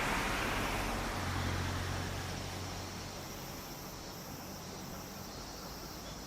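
A steam-hauled passenger train runs past and fades away, its rumble dying down over the first two or three seconds. Insects then chirr softly, in repeating high pulses.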